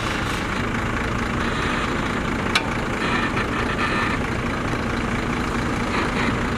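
Diesel engines of heavy construction machinery running steadily, with a single sharp clack about two and a half seconds in.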